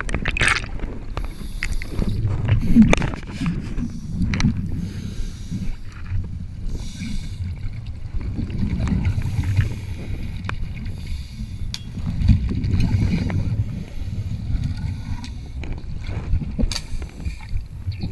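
Muffled underwater noise picked up by a camera in its housing: a low rumble that swells and fades every few seconds, with bubbling from scuba divers' exhaled air and a few sharp clicks.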